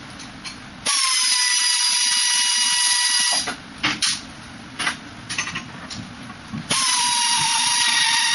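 Pneumatic wrench spinning out the Linhai 300 scooter's exhaust bolts: two runs of a high, steady whine, each about two and a half seconds long, with a slight dip in pitch as each run starts. A few short clacks of socket and bolts come between the runs.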